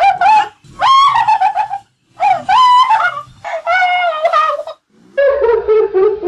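A series of loud, high-pitched wails, about four or five drawn-out phrases roughly a second each with short breaks between them. The last one is lower and falls away.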